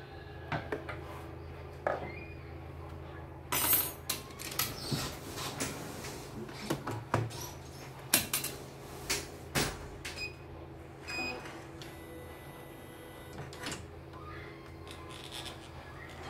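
Irregular clicks, knocks and rattles of hands handling the opened plastic embroidery unit of a CNY E900 embroidery machine, its carriage and wiring, over a steady low hum.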